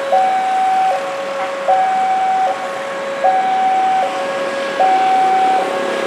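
Railway level-crossing warning alarm: an electronic two-tone signal alternating high and low, each tone held just under a second, warning that a train is approaching the crossing.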